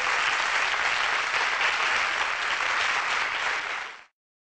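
Audience applause, a steady wash of many hands clapping, that cuts off abruptly about four seconds in.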